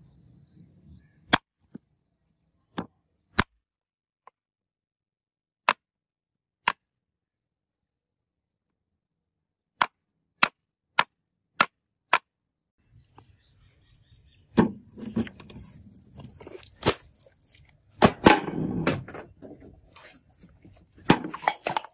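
A knife forged from a leaf spring chopping through a melon onto a wooden cutting board: sharp single knocks, about ten in the first twelve seconds, the later ones coming about two a second. From about fourteen seconds in, a louder, denser jumble of knocks and crackling follows.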